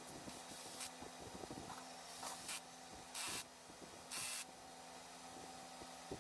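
Four short hissing spray bursts, each about half a second long or less, with pauses between them, over a faint steady hum.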